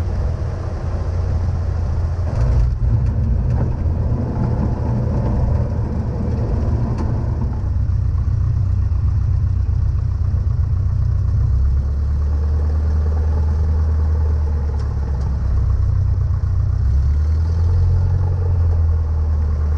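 Cessna 152's Lycoming O-235 four-cylinder engine running steadily at low power as the aircraft taxis after landing. About eight seconds in the higher part of the noise drops away, and the low engine drone shifts to a steadier note about twelve seconds in.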